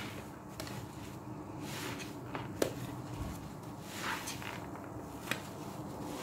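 Soapy sponge squeezed by hand in laundry-liquid suds: wet squelching and the hiss of foam, with a couple of sharp clicks, the loudest about two and a half seconds in.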